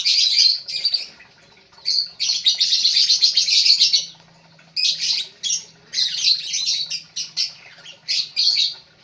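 Lovebirds chattering in fast, high-pitched chirps and squawks, in several bouts of a second or two with short pauses between them.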